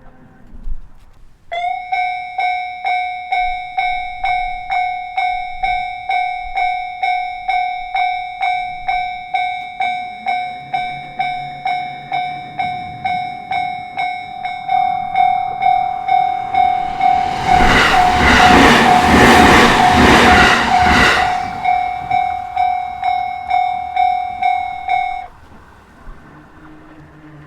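Japanese railway level-crossing warning bell starts about a second and a half in, ringing a steady, evenly repeated ding. Midway a JR Sobu Main Line train passes through the crossing for about five seconds, with wheel noise and rhythmic clacking over the rail joints, the loudest part. The bell stops a few seconds after the train has gone.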